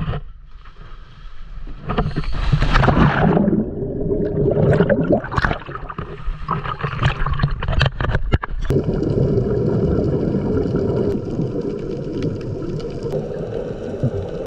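A big water splash about two seconds in as a scuba diver rolls backward into the sea. It is followed by muffled underwater gurgling and bubbling with scattered clicks.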